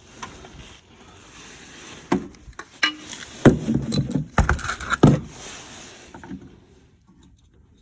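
Handling noises of metal hand tools: rustling and scraping with a string of sharp metallic clinks and knocks, busiest between about two and five seconds in, as an oil pressure switch socket and its ratchet are handled and fitted under the van.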